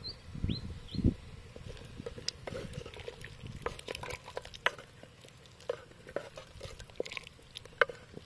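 Wooden ladle stirring pork-leg and green papaya soup in a clay pot: water sloshing, with irregular clicks and knocks of the ladle against the pot and the papaya chunks. A couple of dull thumps come early in the first second.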